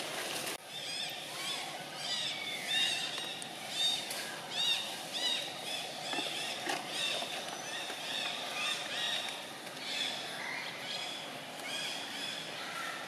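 Many short, high chirping calls in quick succession, each a quick rising-and-falling note, over a steady outdoor background hiss.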